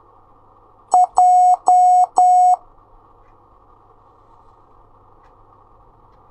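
Morse code tone sending a single letter: one short beep followed by three long beeps (dit-dah-dah-dah), the letter J, over a faint steady hiss.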